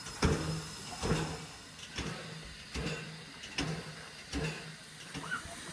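1930 Baldwin steam locomotive standing with a slow, regular beat a little over once a second over a low steady hum.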